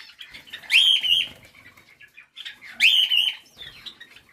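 A flock of Java sparrows calling: two bursts of sharp chirps, about a second in and about three seconds in, with softer clicks and some wing flutters between.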